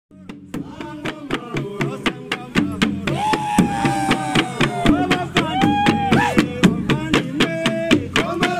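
Traditional Burundi drumming on large wooden karyenda drums beaten with sticks, a steady pulse of sharp strokes about four a second that fades in at the start. Voices chant over the drums, holding long notes.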